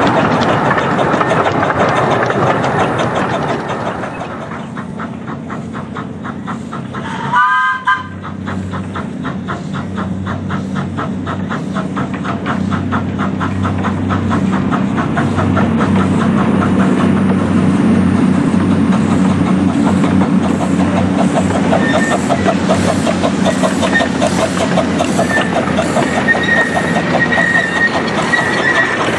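Miniature steam train sounding one short whistle about seven seconds in, then running with a quick rhythmic beat that speeds up and grows louder. A thin high wheel squeal comes and goes near the end.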